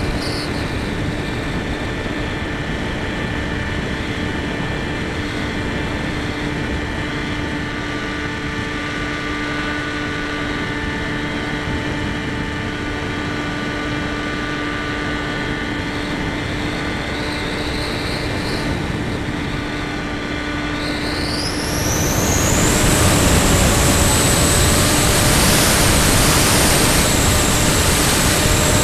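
Model airplane's motor and propeller heard from on board in flight: a steady whine made of several tones over a rushing hiss. About three-quarters of the way through, the whine rises sharply in pitch and grows louder as the motor revs up, then holds there.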